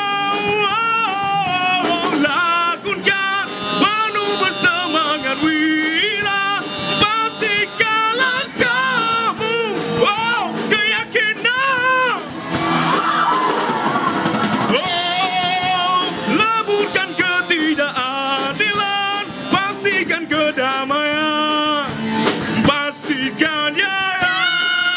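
Live rock band: a male singer's vocals over a drum kit, acoustic and electric guitars.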